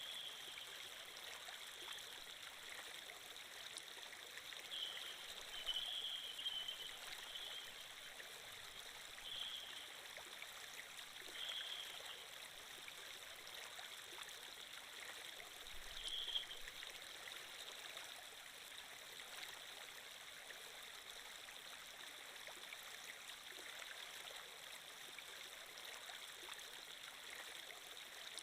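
Flowing-water sound effect: a quiet, steady stream running, with a few short louder moments in its first half.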